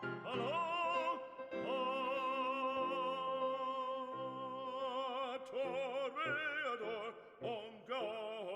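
Background music: classical operatic singing, long held notes with a strong vibrato over a sustained instrumental accompaniment.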